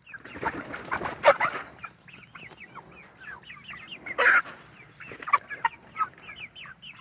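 A flock of meat chickens peeping and clucking continually, many short calls overlapping, with a couple of louder calls about a second in and again near four seconds.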